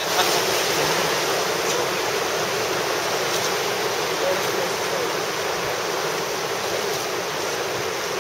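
Whitewater river rushing steadily as a raft rides the rapids, a dense even wash of water noise.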